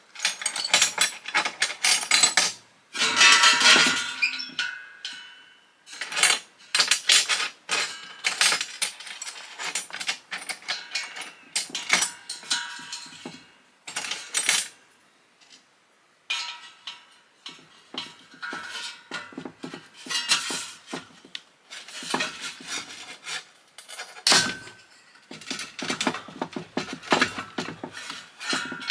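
Metal parts of an exhaust fan being taken apart with hand tools: irregular clinks, clanks and scraping, with a few ringing metal knocks and a short pause partway through.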